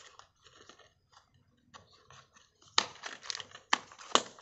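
Hard plastic toy truck chassis and wheel being handled and fitted together: small scattered rattles, then several sharp plastic clicks and knocks in the second half.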